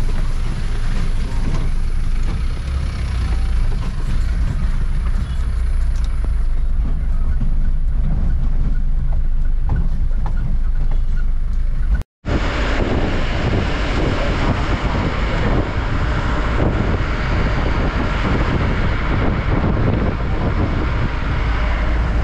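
Cab interior of a moving goods truck: steady low engine drone with tyre and wind noise. The sound cuts out briefly about halfway through, and afterwards the road and wind noise is brighter and fuller.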